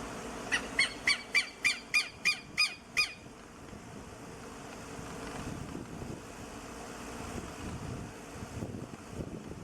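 Southern lapwing calling: a quick series of about nine loud, sharp calls, roughly three a second, over the first three seconds. A low rumble, like wind on the microphone, follows.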